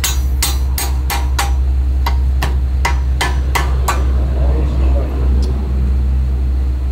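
Hand hammer striking the end of a wooden knife handle, driving it down onto the knife's tang held in a bench vise. There are about four quick sharp blows, a short pause, then five more, ending about four seconds in, over a steady low hum.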